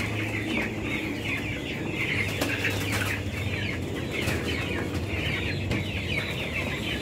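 Many broiler chicks peeping at once: a dense, continuous chorus of short, high, falling cheeps, with a low steady hum underneath.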